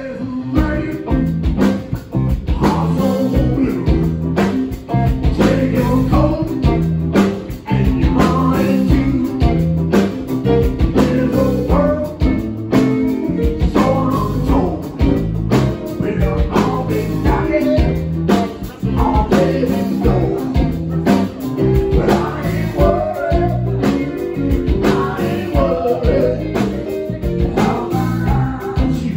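Live blues-rock band playing: electric guitars, bass and drums with a trumpet and saxophone horn section, and a voice singing over it.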